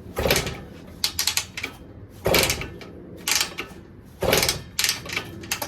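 Kick-starter of a Minarelli P4-70 two-stroke motorcycle engine being kicked over about once a second, a short mechanical clatter and ratchet click each time. The engine does not catch; it is being kicked with no choke on.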